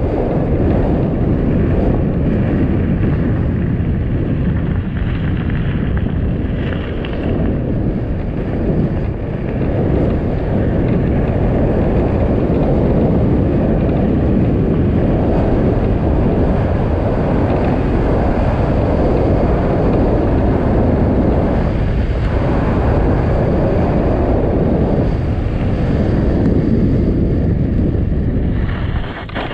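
Rushing wind buffeting the microphone over the rumble and crunch of mountain bike tyres rolling fast on a gravel fire road, a dense low noise that dies away near the end as the bike slows down.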